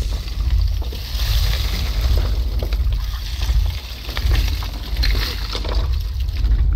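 Boat engine running with a steady low rumble, under the clatter of hard clam shells sliding and knocking together as the trawl net's catch is emptied onto the pile in the hold, with water running off.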